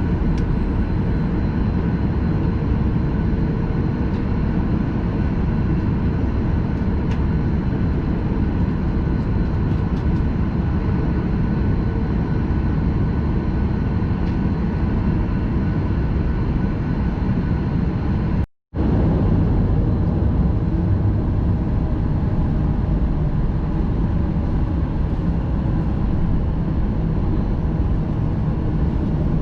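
Steady engine and airflow noise inside a jet airliner's passenger cabin, with a few faint steady tones in it. The sound cuts out for a split second about two-thirds of the way through.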